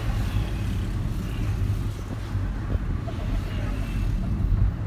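Steady low rumble of a Kia car's engine and road noise, heard from inside the cabin while driving.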